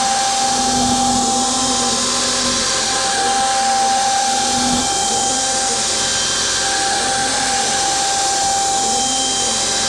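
DIY CNC router milling: a steady high spindle whine over a loud hissing rush, with a lower motor tone that rises and falls again and again as the machine moves.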